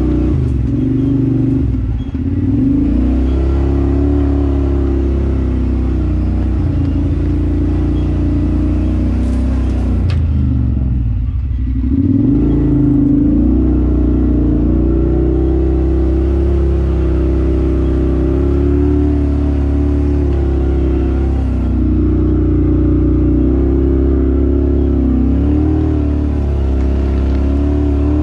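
Off-road vehicle engine running on a trail under changing throttle, its pitch rising and falling. About ten seconds in the revs drop away sharply for a moment, then climb back up.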